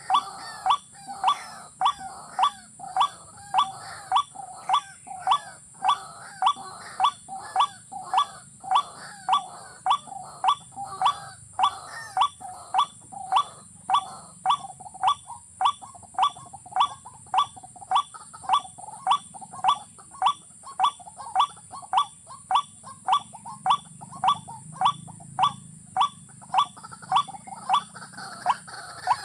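A bird calling over and over: the same short note repeats evenly, just under twice a second.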